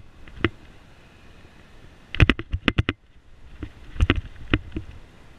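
Sharp irregular rattling clicks of a bicycle and its mounted GoPro jolting over bumps in the road surface, in two quick clusters about two and four seconds in, over a low steady rush of riding noise.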